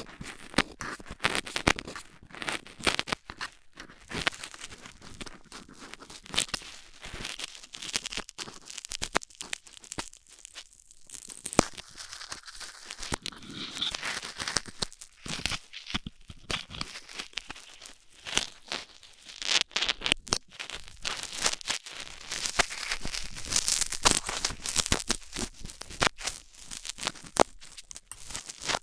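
Stainless steel dental pick scraping and scratching inside an ear during close-miked ear cleaning: dense, irregular crackling and rasping scrapes with a few brief pauses.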